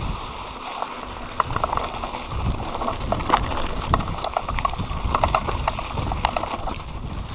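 Mountain bike rattling and clicking over a rough, bumpy grass track, with an uneven low rumble of wind and jolts on the handlebar-mounted microphone.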